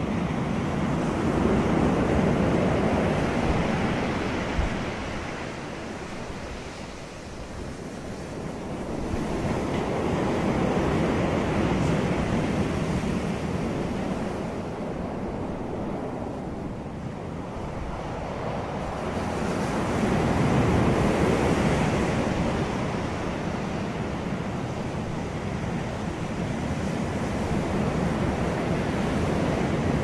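Ocean surf breaking and washing onto the shore, a continuous rush that swells and falls back in slow surges about every ten seconds.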